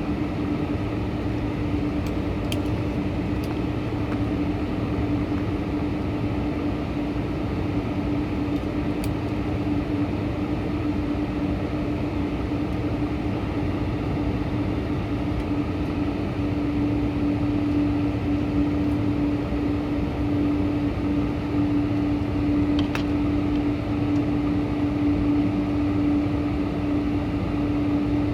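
Steady cabin drone inside a Boeing 747-400: an even rushing noise with a steady hum running through it, growing slightly louder about halfway through.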